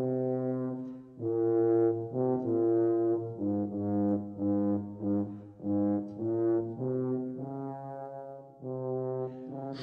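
Low brass instruments playing a slow melody of long held notes, each lasting about half a second to a second with short breaks between them.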